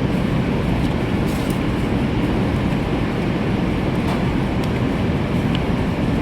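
Steady low rumbling background noise with a few faint light clicks.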